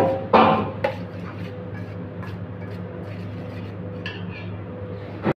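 Quinoa salad being mixed in a stainless steel bowl: scrapes and clinks against the metal, the loudest within the first second, over a steady low hum.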